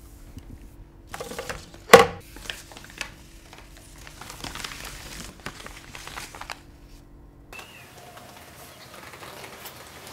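Rustling and scuffling, with one sharp, loud smack about two seconds in. Near the end the sound cuts to a quieter room with a short high chirp.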